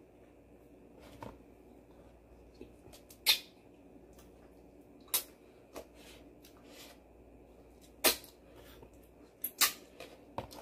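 Wooden chopsticks clicking and tapping against a thin plastic takeout bowl while food is picked out and eaten: about eight scattered sharp clicks, four of them much louder than the rest.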